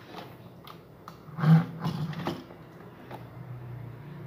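Handling noise from a speaker's amplifier circuit board being shifted against its metal control panel: scattered light clicks, with a louder knock and scrape about a second and a half in.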